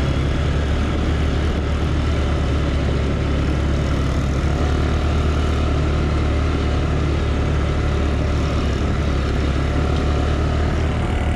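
Grizzly 200cc ATV engine running steadily at an even pace while riding, with no revving or change in speed.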